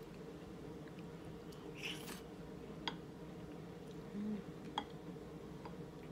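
Close-up eating sounds: a spoonful of potatoes and chorizo taken from a wooden spoon, then chewing with sharp mouth clicks, with a brief hummed "mm" about four seconds in. A steady low hum underneath.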